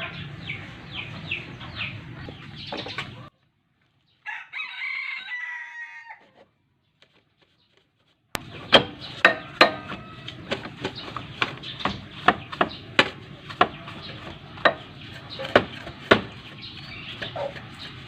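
A rooster crowing and clucking in the first part, a falling drawn-out call about four seconds in. After a short dropout, a run of sharp clicks and knocks, about one or two a second, for the rest of the stretch.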